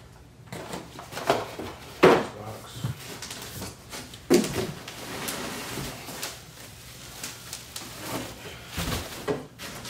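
Unpacking a large cardboard box: several sharp knocks and thumps from the cardboard and its contents being handled, and rustling plastic wrap as a wrapped chair part is pulled out.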